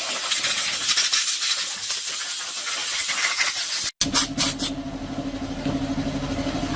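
Workshop tool noise: a loud, rough hiss for about four seconds, then, after an abrupt cut, a steady motor hum with a held low tone.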